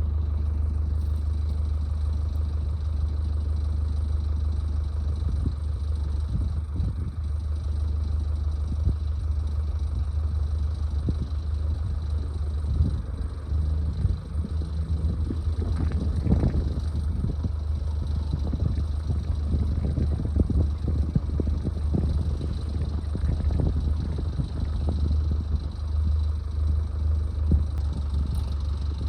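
A vehicle engine idling steadily, with scattered knocks and clatter over it.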